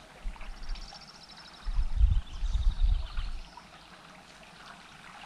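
Wind gusting on the camera microphone, two stretches of deep rumble in the first half, over the faint wash of the river. A small bird trills rapidly and high in the background during the first couple of seconds.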